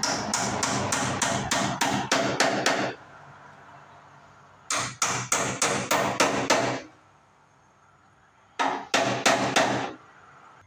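Hammer driving nails to fasten an electrical box to a wooden wall stud: three quick runs of blows, about four a second, with pauses between. The first run is longest, about a dozen strikes, and the last is shortest, about five.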